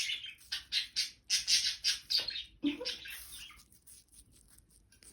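Indian ringneck parrot crunching a piece of apple with its beak: a quick, irregular run of short crisp bites that thins out after about three seconds.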